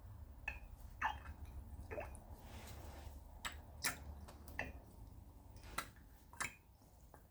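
Faint small clicks and taps, about nine of them spread irregularly, from handling a plastic dropper and small food-colour bottles, over a steady low hum.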